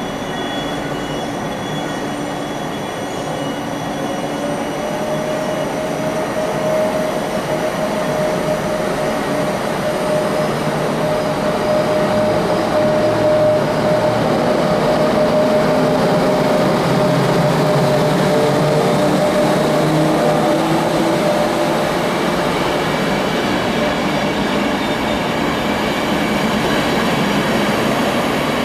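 ÖBB passenger train of Intercity coaches running past close by: a steady rumble of wheels on rail that grows louder over the first dozen seconds and then holds, with a long steady high tone through the middle.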